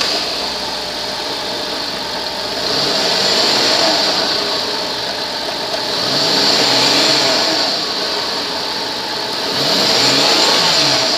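The V6 engine of a 2001 Chrysler Town and Country, just started, idles and is revved up and back down three times, a few seconds apart.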